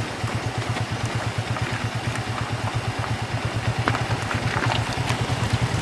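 Motorcycle engine running steadily, a fast, even low pulse from its exhaust.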